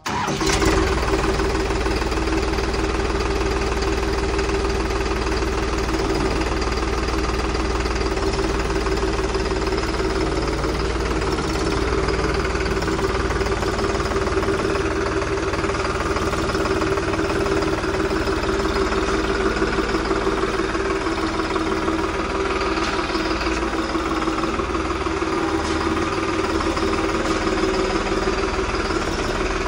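Diesel tractor engine running steadily at a constant speed.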